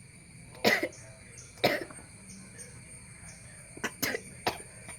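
A person coughing instead of sneezing while trying to force a sneeze: two sharp coughs about a second apart, then three short, quieter ones near the end.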